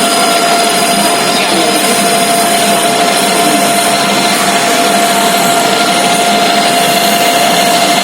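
Lathe running steadily: a loud, even machine noise with a constant mid-pitched whine.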